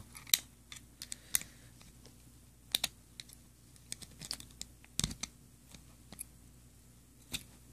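Irregular small clicks and taps of a tool and metal clips against a KWA MK IV airsoft pistol slide as the gas-chamber housing is worked loose.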